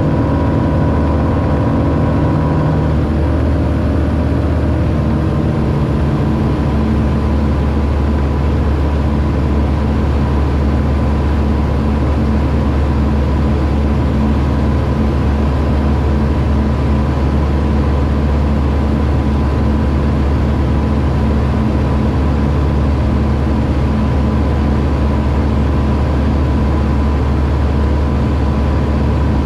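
Aquila A210 light aircraft's Rotax four-cylinder engine and propeller running in flight, a loud steady drone. The pitch shifts slightly a few seconds in, then holds steady.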